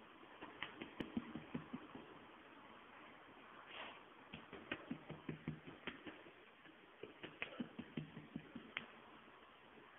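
A dog being patted: runs of soft taps, about four a second, each run lasting a second or two with pauses between.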